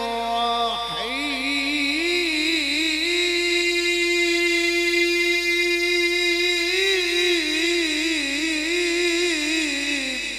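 A male qari's voice in melodic Quran recitation (tilawah) through a handheld microphone, drawing out one long melismatic note. It dips and glides back up about a second in, then holds with a wavering ornament and trails off at the end.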